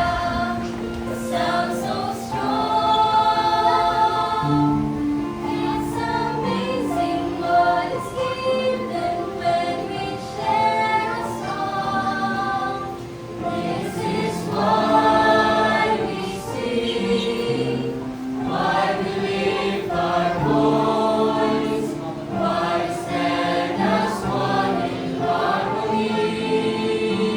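Choir singing, the voices holding long notes together.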